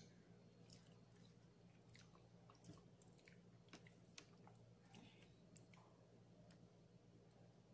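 Faint chewing of fish with scattered small clicks, over a steady low hum.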